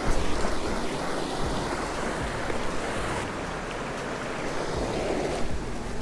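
Creek water running over rocks, a steady rush.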